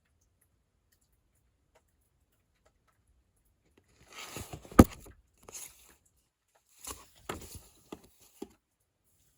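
Handling of a small toy alarm clock and its packaging: short bursts of rustling with clicks, starting about four seconds in. One sharp click just before the middle is the loudest, and a few more rustles and clicks follow near the end.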